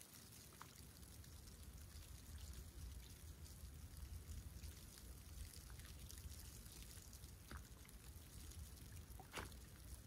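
Faint sea water lapping and trickling at the edge of a snowy shore, over a low steady rumble, with a few soft ticks.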